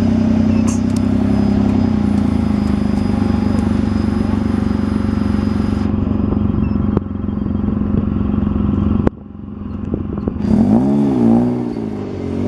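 Engine of a custom off-road buggy running close by at a steady low pitch, then revved up and down several times near the end.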